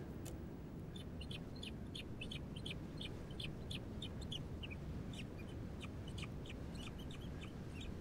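Buzzard chick giving rapid, short, high-pitched chirps, about three or four a second, typical of begging with the adult at the nest, over a low steady rumble.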